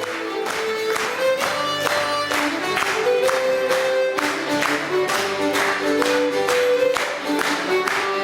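Instrumental music: a sustained melody over a steady percussive beat of about two strikes a second.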